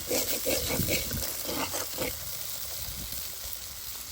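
Curry frying in a hot pot, sizzling and crackling. The crackling is busiest for about the first two seconds, then settles to a steadier, softer sizzle.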